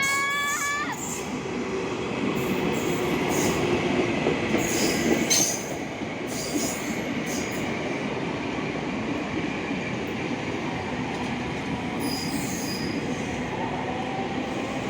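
An electric commuter train passing close by: a steady rumble and clatter of wheels on the rails, with scattered high clicks and light wheel squeal, a little louder in the first five seconds or so. Over the first second a short horn note rises in pitch and then holds before stopping.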